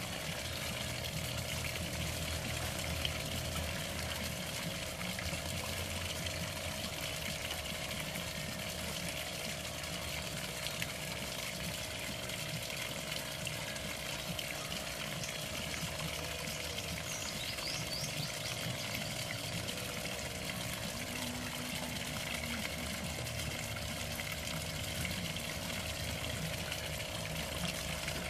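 Small pond fountain jet splashing steadily onto the water surface, with a faint steady hum underneath.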